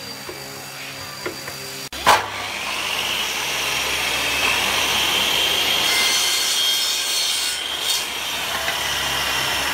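Electric miter saw starting about two seconds in with a sharp burst, then running with a steady high whine as its blade cuts through a small strip of wood. Before it, a few faint scrapes and taps of a hand tool on a plywood edge.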